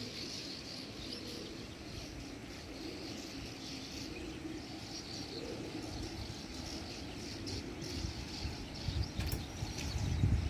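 A large flock of streak-throated swallows twittering, a dense chatter of many short high chirps. A low rumble grows louder near the end.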